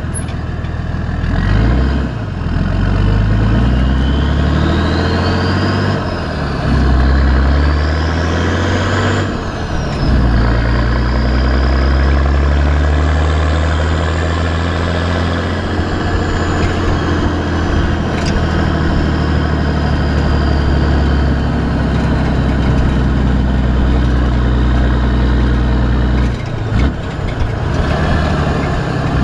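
Exhaust of a Nissan TD42 4.2-litre straight-six turbo diesel with a T3/T4 turbo, through a 3-inch exhaust with one small muffler. It pulls up through the gears, its pitch climbing three times with a short drop at each shift, while a high turbo whistle rises with the revs. Then it holds a steady cruise, with a brief lift about 27 s in.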